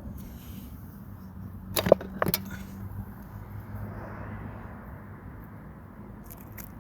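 Two sharp clacks about half a second apart as hard tools are handled and knocked together, over a steady low hum.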